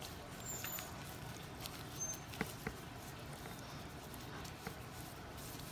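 Faint, soft handling sounds with a few light clicks scattered through: hands pressing marinade into the slits and cavity of a raw whole sea bream.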